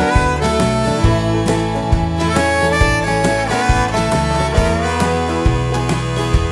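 Instrumental break in a country song: harmonica and fiddle lines over guitar, with a steady beat.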